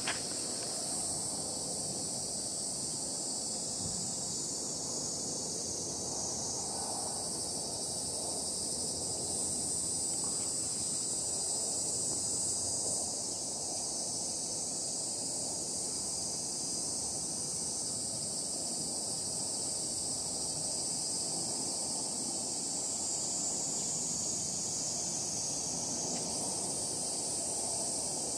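Steady, high-pitched chorus of insects buzzing, with a faint low outdoor rumble underneath.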